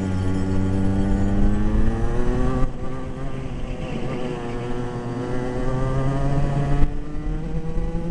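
Go-kart engine heard from on board, revs climbing steadily under acceleration, then dropping sharply as the driver lifts off, about a third of the way in and again near the end, before picking up once more.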